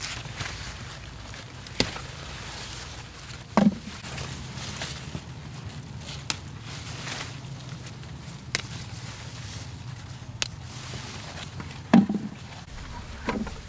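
Stalks snapped by hand during a crop harvest: sharp snaps and cracks every second or two, two of them heavier with a dull thud, over a low steady hum.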